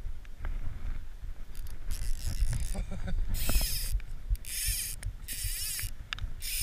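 Fly line being pulled in short, quick strokes about once a second, each stroke a half-second zipping rasp.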